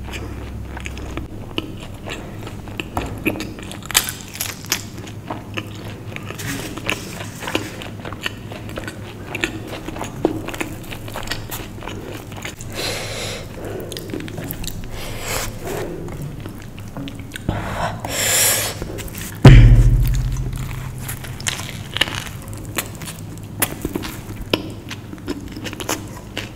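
Close-miked eating sounds: a person chewing with a full mouth, then biting into a soft veg burger, with many small wet mouth clicks and smacks. A single loud thump about two-thirds of the way through.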